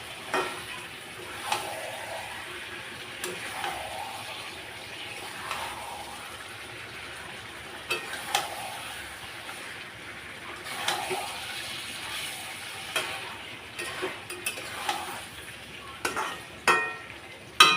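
Chicken curry masala sizzling in a hot kadhai while a spoon stirs and scrapes it, a scrape or knock every second or two. Near the end come several loud, ringing metal clanks.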